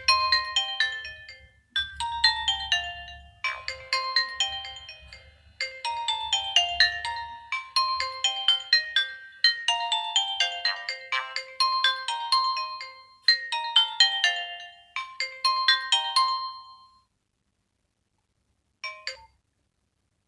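A Nokia 103 ringtone playing: a melody of short, quick notes in phrases of about two seconds, repeated over and over, with a low hum under the first half. It stops about 17 seconds in, and one short blip sounds a couple of seconds later.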